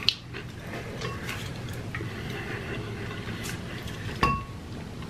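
Quiet handling and eating sounds of fried chicken at the table, with a few small clicks and one sharp clink about four seconds in that rings briefly.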